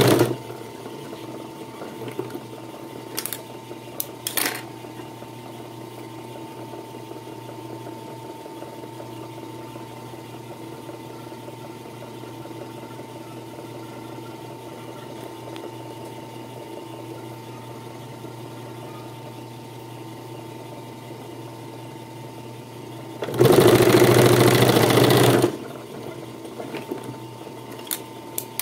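Puritan three-needle industrial sewing machine: its motor hums steadily while the needles stand still, with a few light clicks. A little over twenty seconds in, it sews in one loud burst of about two seconds.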